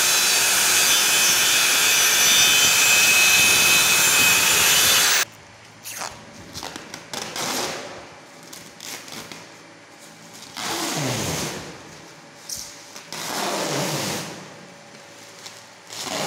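Handheld circular saw cutting a plastic PS sheet: a loud steady noise that cuts off suddenly about five seconds in. After that, the plastic sheet is lifted and handled, with scattered knocks and a few swelling rustles.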